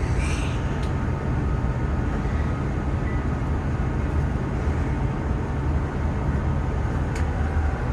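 Steady low rumble with a hum, holding at one level throughout.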